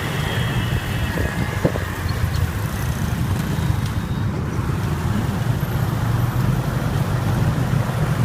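Motorbike engine running steadily under road and traffic noise, heard from the bike while riding.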